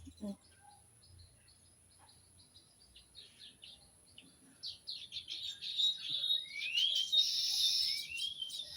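Small birds chirping, faint at first and growing denser and louder about halfway through, with several rising whistled notes near the end.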